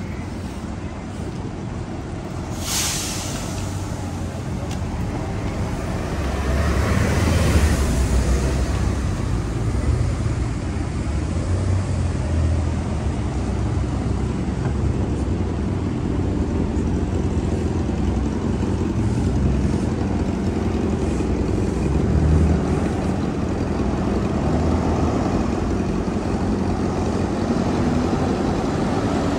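City street traffic: a steady low rumble of passing cars and trucks, with a short sharp hiss about three seconds in and a louder vehicle going by around seven seconds in.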